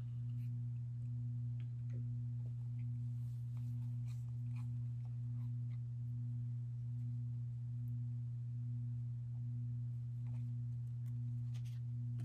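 A steady low hum at one pitch with a fainter overtone, unbroken throughout. Faint clicks and rustles of trading cards being handled are heard under it.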